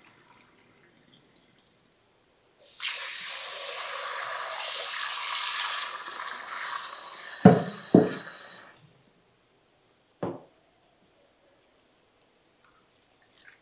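Kitchen tap running into an aluminium pressure cooker pot of lentils in a steel sink, filling it to rinse the lentils. The water starts about two and a half seconds in and stops near nine seconds, with two sharp knocks just before it stops and one more knock about a second and a half later.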